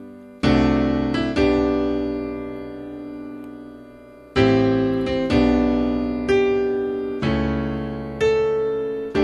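Yamaha digital piano playing a solo passage with no singing, recorded straight from its line output. Two chords are struck near the start and left to ring and fade for about three seconds, then a chord is struck about once a second.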